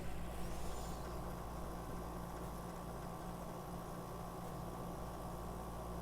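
Airbrush air compressor running with a steady low hum and a thin steady tone above it.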